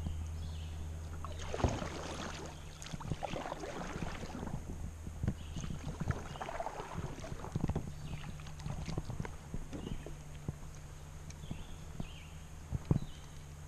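Kayak paddle strokes: the blades dip and splash through the water, with irregular sharp knocks of the paddle against the kayak.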